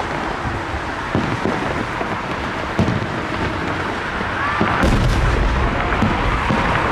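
Aerial fireworks booming: separate thuds a few seconds apart, then from about five seconds in a heavier, continuous rumble of bursts.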